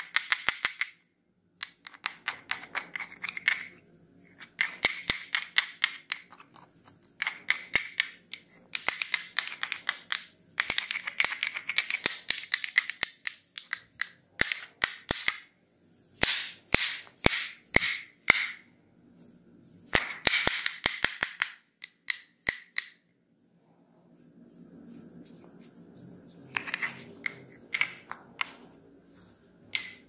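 A pair of wooden massage sticks clacking together in quick bursts of sharp clicks, about eight a second, each burst a second or two long with short pauses between. The clicks come slower and singly around the middle. Near the end they give way to a softer, lower rubbing.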